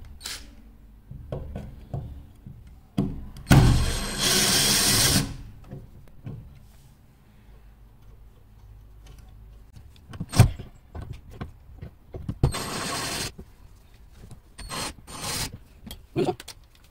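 Foster FK 38-21 21V cordless drill-driver running in several short bursts, driving screws into a wooden door frame; the longest burst lasts about a second and a half, about four seconds in. Between bursts come clicks and knocks from handling the metal latch bracket and drill, the loudest a sharp knock about ten seconds in.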